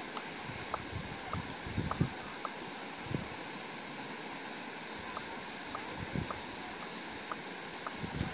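A steady hiss of outdoor background noise, with faint short chirps scattered through it and a few soft low thumps.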